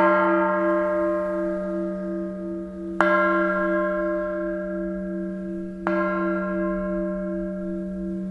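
La Piagnona, the church bell of San Marco, struck three times about three seconds apart, each stroke ringing on over a low hum that pulses steadily in loudness.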